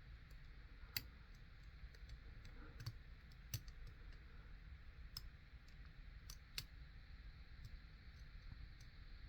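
Faint, scattered light clicks of a long-reach lock pick working the pins inside a U.S. Postal rotary lock as they are set one by one.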